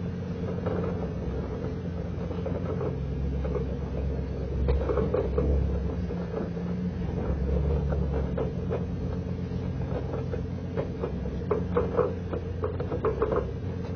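Pickup truck engine running at low speed while towing a dock section, with scattered rattles and knocks from the truck and the towed dock frame, most of them in the middle and near the end.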